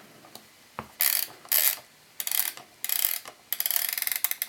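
A Bosch UDW2 flip alarm clock's setting mechanism being turned by hand, clicking and ratcheting. The clicks quicken into a rapid clatter of about ten a second near the end.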